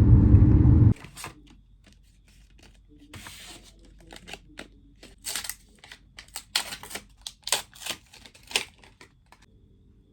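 A loud low hum with steady tones cuts off suddenly about a second in. Hand-handling noises follow: a string of sharp clicks, crinkles and short tearing sounds, loudest in the second half.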